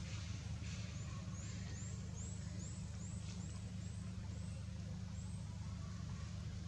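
A steady low rumble, with a run of about ten short high chirps, roughly two a second, starting about a second in and fading out a little past the middle.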